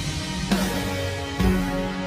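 Sped-up music track just starting, with sharp accented hits about half a second and a second and a half in.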